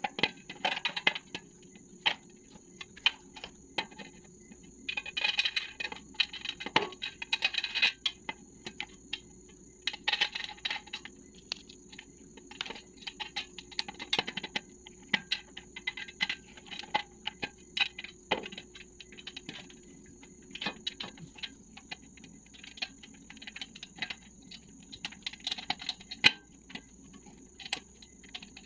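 Irregular small metal clicks and taps as screws and fittings are handled and turned into a pink metal mirror frame during assembly, with bursts of plastic parts-bag crinkling.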